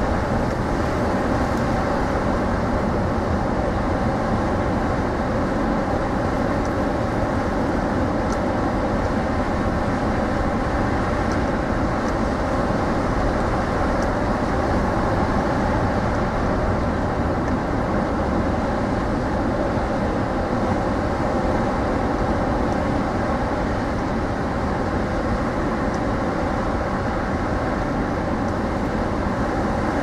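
Rough ocean surf stirred up by a storm out at sea, waves breaking and washing ashore in a loud, steady wash without pause.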